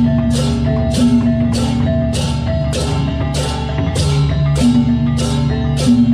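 Balinese gamelan playing: bronze metallophones and gongs holding ringing pitches over a crash struck about twice a second, in a steady rhythm.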